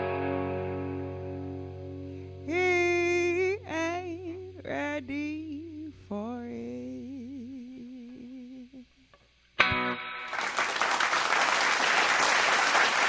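Electric guitar chord ringing out and slowly fading while a woman sings a few short, wavering wordless vocal runs, ending a song. After a brief hush, applause starts suddenly about ten seconds in.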